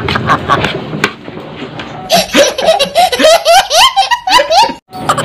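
A toddler laughing hard in quick, high, rising peals, starting about two seconds in after a stretch of busy background noise, and cut off abruptly just before the end.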